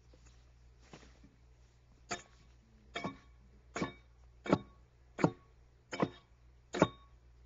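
Axe blows biting into an oak log as it is hewn into a railroad tie: seven sharp strokes about three-quarters of a second apart, starting about two seconds in.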